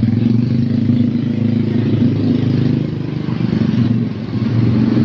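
A vehicle engine running with a steady low hum that eases slightly about three seconds in and then picks up again.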